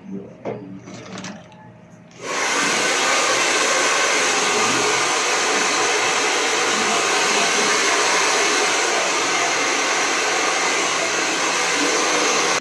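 Hair dryer switched on about two seconds in, then running with a loud, steady rush of air until it cuts off at the end.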